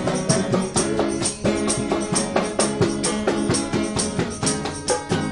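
Acoustic guitars strumming while a plastic bucket played as a hand drum keeps a quick, steady beat, in a dangdut-style groove.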